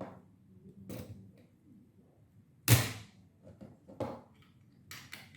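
Sharp clicks and snaps of a tool working the small beeper buzzer off the TK8A controller's circuit board, about five separate knocks with the loudest one about two and a half seconds in. The buzzer is being broken out to silence the controller's beeps.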